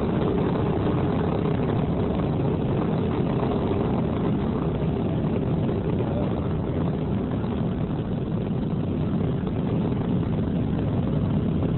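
Steady, deep rumbling roar of a Titan IV rocket as it breaks up in flight, with no separate bangs. The failure was caused by a shorting exposed wire in the vehicle's power supply.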